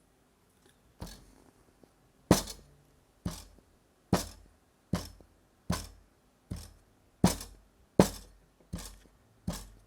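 A knife chopping down through kinetic sand onto the tray in a steady rhythm: about a dozen sharp knocks, roughly one every three quarters of a second, starting about a second in.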